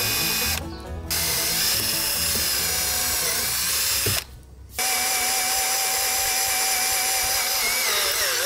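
Cordless drill boring into a varnished wooden rail, running in bursts with two short stops, about half a second in and just after four seconds; after the second stop its motor whine holds a steady pitch.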